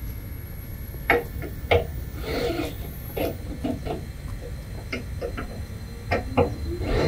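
Tools and parts being handled during installation work: a few sharp clicks and knocks about a second in, near two seconds and twice a little after six seconds, with a brief scrape around two and a half seconds, over a low steady rumble.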